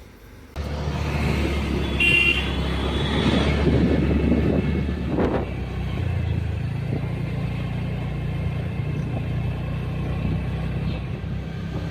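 A vehicle engine running steadily, starting abruptly about half a second in, with a brief high tone about two seconds in.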